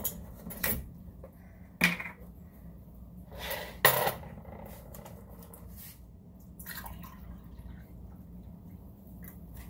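Stainless steel pot and utensils knocking and clanking on the counter, with two sharp clanks about two and four seconds in. After that comes a faint, steady sound of apple juice being poured from a bottle into a glass measuring cup.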